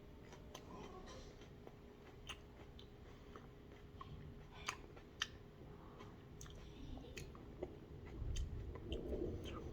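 A person chewing a fresh Hallows Eve hot pepper: faint, scattered crunches and mouth clicks, growing a little louder near the end.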